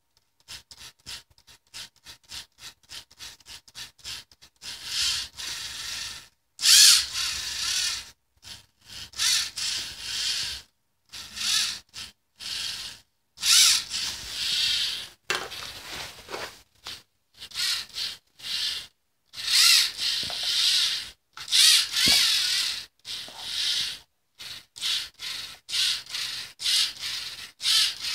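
LEGO Mindstorms EV3 motors and their plastic gear trains whirring in short, uneven spurts as they drive the wheels back and forth to keep the two-wheeled self-balancing robot upright. The spurts come quickly and briefly at first, then longer and louder.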